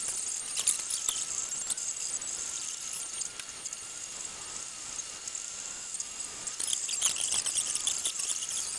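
MakerBot Replicator 2 3D printer running, its stepper motors whining in a thin wavering tone as the extruder head moves. Busier high chirping rattles come about a second in and again in the last couple of seconds.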